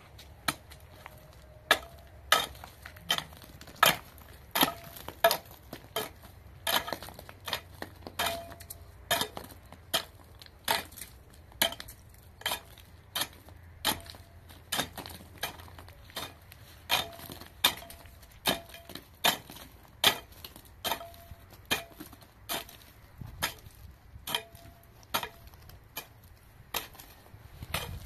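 Pickaxe being swung into wet, stony ground: a steady run of sharp strikes, about one and a half a second. Many of the strikes give a short metallic ring where the head hits stone.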